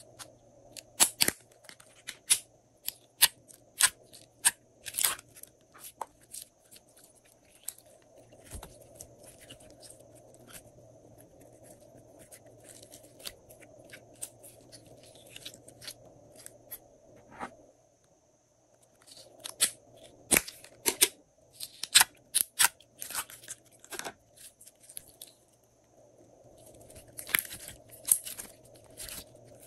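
Slime being squeezed and worked by hand, giving clusters of sharp clicking pops with quieter stretches between.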